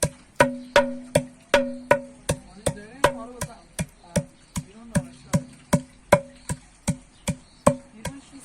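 Steady, even knocking, about two and a half strikes a second, each with a short hollow ring.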